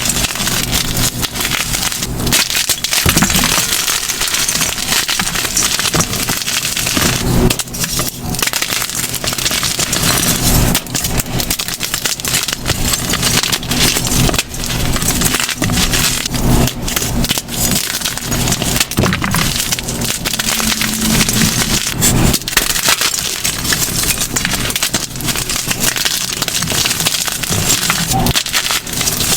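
Gym chalk being crushed, a dense, continuous run of crisp crunches and crackles.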